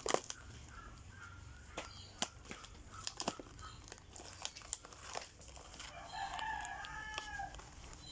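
Plastic packaging crinkling and crackling in scattered sharp clicks as it is handled and opened. About six seconds in, a rooster crows in the background for about a second and a half.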